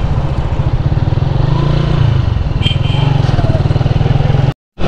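Honda CG's single-cylinder four-stroke engine running as the bike is ridden, a rapid even pulse whose note eases down about two seconds in. The sound cuts out for a moment near the end.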